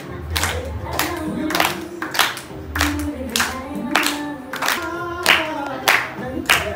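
A group of people singing together while clapping along in a steady rhythm, nearly two claps a second.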